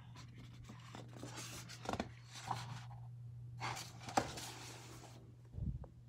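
Paper rustling and handling noise from a hardcover picture book being closed and turned over, with a few light clicks and a soft thump near the end as it is set down. A steady low hum runs underneath.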